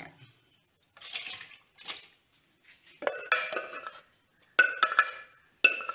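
Cooked pineapple pieces tipped out of a pressure cooker into a steel bowl, with a short wet slide about a second in. Then three short bouts of a wooden spoon scraping the pot and metal clanking and ringing against metal.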